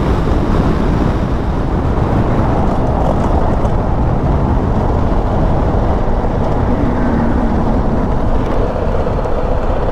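Motorcycle riding at road speed: wind rushing over the rider's microphone with the engine and tyre noise underneath, steady throughout.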